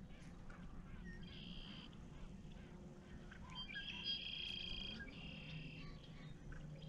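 Faint frogs calling in high trills of about a second each, a few seconds in several calls overlapping, over a low steady background hum.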